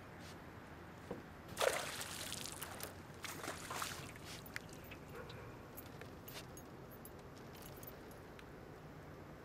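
Hooked bass thrashing at the water's surface beside the boat as it is reeled in, with a few sharp splashes in the first four seconds, the loudest at about a second and a half, then only light water sounds.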